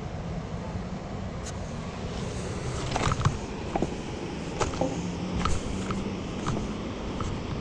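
Steady outdoor background rumble with a low hum, and a handful of sharp clicks and taps in the middle few seconds.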